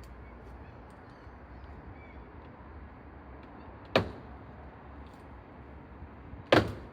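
Two sharp snaps or knocks, about two and a half seconds apart, from the plastic lower grille and its clips being forced out of a car's front bumper.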